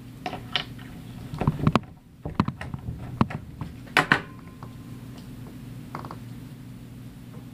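Handling noise from plastic bottle caps being worked with string and rubber bands: a handful of sharp clicks and knocks in the first few seconds, then only a steady low hum.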